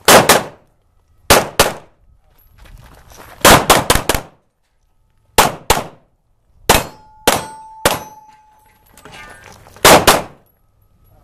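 Pistol shots fired in quick strings of two to five, about seventeen in all, at a practical shooting match. Some hits ring on steel targets, leaving a brief metallic ring near the middle.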